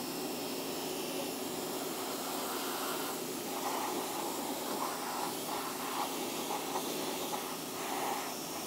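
Pressure washer spraying a dirt bike's underside, engine cases and skid plate in a steady hissing jet. From about three seconds in, the sound of the spray wavers as the jet moves over the parts.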